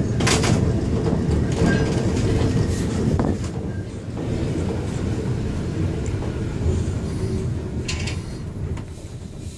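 Vintage electric tram running on its rails, heard from the driver's cab: a steady low rumble of wheels and running gear with a few sharp clacks over the track. It gets gradually quieter from about three seconds in.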